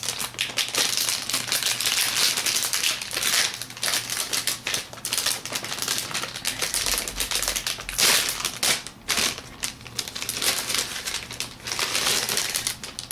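Anti-static bag crinkling and rustling as a sound card is handled and pulled out of it: rapid, irregular crackles, stopping suddenly near the end.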